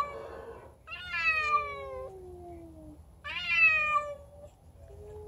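Domestic cats yowling at each other in a standoff: a drawn-out call that falls in pitch about a second in, overlapped by a lower falling moan, then another falling yowl about three seconds in.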